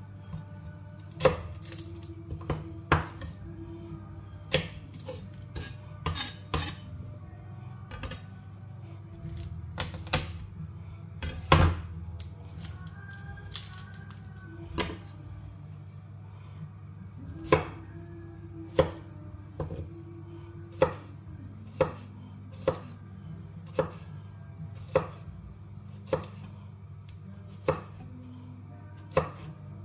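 Chef's knife knocking on a wooden cutting board while garlic cloves are peeled and cut: single sharp knocks at uneven intervals, settling to about one a second in the second half, over a steady low hum.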